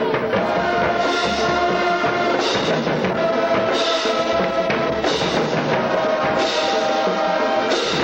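Music with drums and sustained notes, with a bright crash landing about every second and a half.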